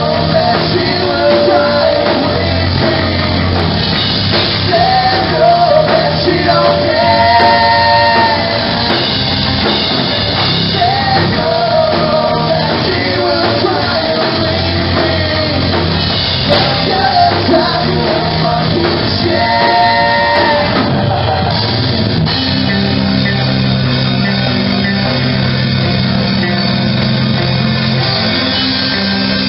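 Live rock band playing loud: distorted electric guitars, bass and drum kit under a male lead singer's strained, shouted singing. The singing stops about two-thirds of the way through and the band carries on with an instrumental passage.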